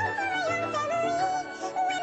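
Music with a wavering, high melody line over a lower accompaniment.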